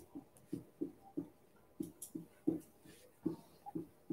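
A pen writing a line of handwriting on a board: a string of short, soft taps and strokes, about two or three a second.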